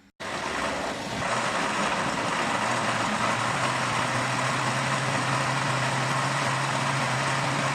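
Electric countertop blender running at full speed, churning orange, lemon, banana, sugar and water into juice: a steady loud whirring with a motor hum whose pitch rises slightly about four seconds in.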